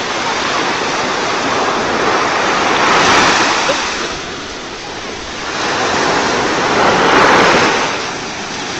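Surf breaking and washing up a beach: a steady rush of churning water that swells twice, about three seconds in and again about seven seconds in.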